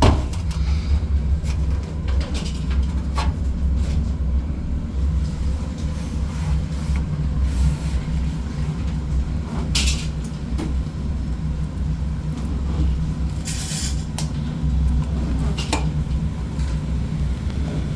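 A steady low mechanical hum, with scattered clicks and knocks over it.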